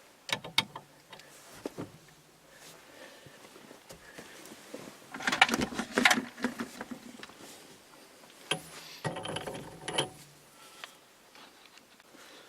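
Metal clinks, clicks and rattles of hand tools and puller bolts being handled, with a busier spell of clattering about five to seven seconds in and again near nine to ten seconds.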